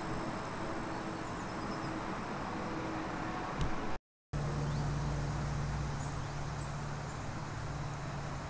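Outdoor ambience: a steady low rumble and hum with a thin, high insect buzz over it. About four seconds in the sound drops out for a moment and comes back with a steadier low drone.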